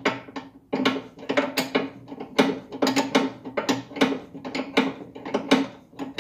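Ratchet wrench clicking in quick runs of strokes, several clicks a second, as a strap nut on an MTZ tractor's fuel tank is tightened down over paronite pads.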